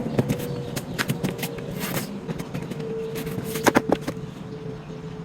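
Woodworking handling noise: scattered knocks and clicks of cabinet panels being moved and set in place, with two sharp cracks in quick succession a little before the four-second mark, over a faint steady hum.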